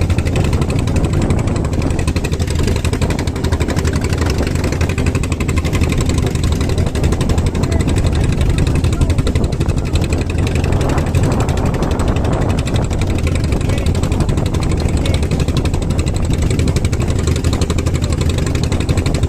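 A small fishing boat's engine running steadily with a low, even hum.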